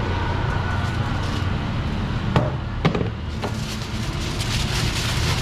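Steady low rumble of background noise, with two sharp knocks a little before halfway and a lighter one soon after, as a serving spoon is tapped against a plate while pulao rice is heaped onto foil.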